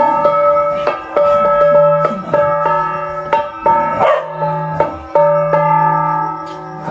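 A flat metal gong struck with a stick in a slow, uneven rhythm, each stroke ringing on with several overlapping tones.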